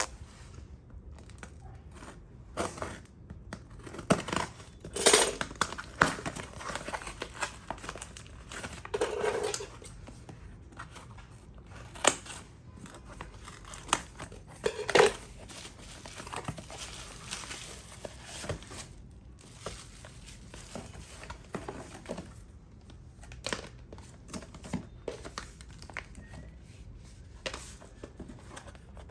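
Watch packaging being handled and opened by hand: crinkling and tearing of paper or plastic wrapping, with scattered clicks and taps. The loudest rustles come about 5, 9 and 15 seconds in.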